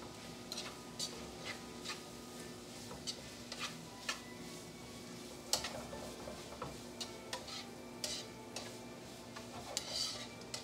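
Metal tongs clicking and scraping against a nonstick skillet as diced pork and vegetables are tossed in the stir-fry, the clicks coming irregularly about twice a second. The food sizzles faintly underneath.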